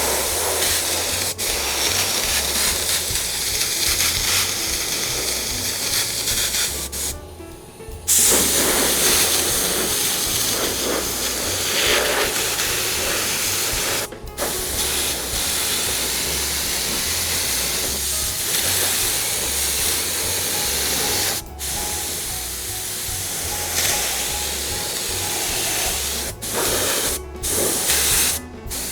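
Two-stage-trigger spray gun hissing in long bursts with brief breaks, blowing compressed air and spraying contact glue onto seat foam. The air dries and tacks up the glue.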